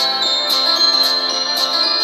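Background music with a steady beat of about two hits a second over sustained tones.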